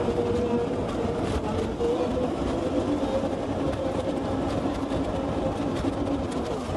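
An engine running steadily, with a low rumble and a constant hum.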